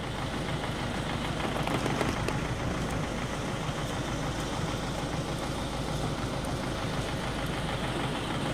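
Diesel engine of a tractor-based backhoe loader idling steadily.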